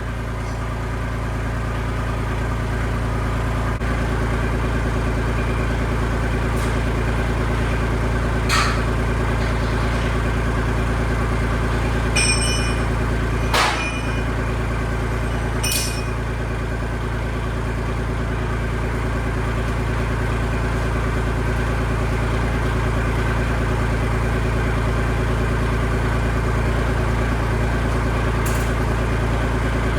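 Tractor engine idling steadily, with a few sharp metallic knocks, one of them a ringing clang of steel about twelve seconds in.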